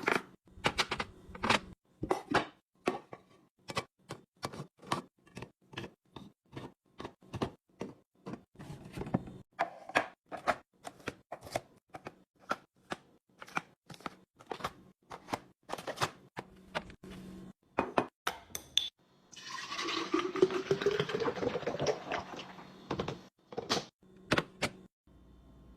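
Food packages and containers being handled and set down during a fridge restock: a quick string of separate clicks and knocks, two or three a second. About twenty seconds in comes a steady rush for about three seconds, with a tone that rises in pitch.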